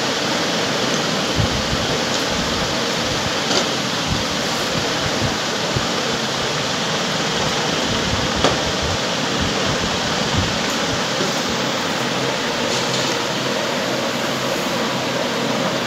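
A steady, even rushing noise, with a few faint clicks and taps scattered through it.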